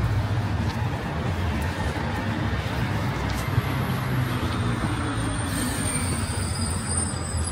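Steady road traffic on a busy city avenue: vehicle engines and tyres running past as a constant low drone.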